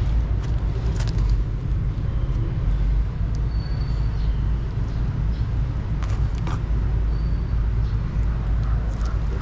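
Steady low background rumble, with a few sharp clicks and a couple of brief high chirps over it.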